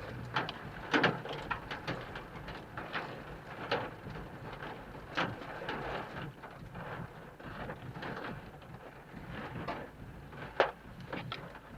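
Rain striking a vehicle: a steady hiss with irregular sharp taps from heavier drops, the loudest about a second in and again near the end.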